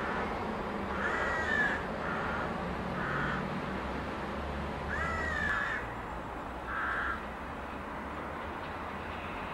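A crow cawing about five times, in short harsh calls spaced a second or two apart, over a steady low background rumble.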